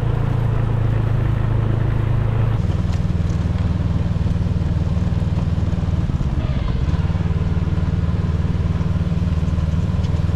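Ski-Doo snowmobile engine running steadily at low speed, with the engine note changing about two and a half seconds in and again around seven seconds.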